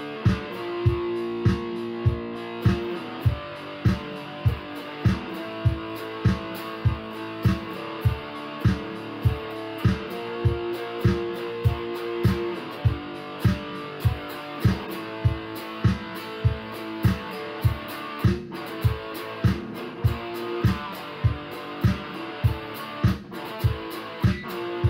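Background music: guitar over a steady beat of about two thumps a second.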